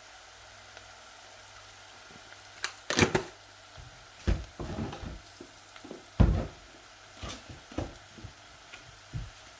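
A spoon knocking and scraping against a cooking pot as spices are added and stirred in, about eight irregular knocks with the loudest about three and six seconds in, over a faint sizzle.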